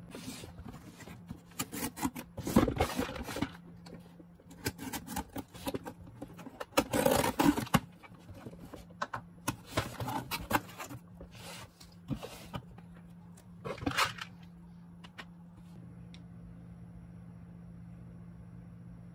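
A cardboard shipping box being opened by hand: tape and flaps pulled and torn, with irregular scraping and crackling bursts that die away about 14 seconds in, leaving a faint steady hum.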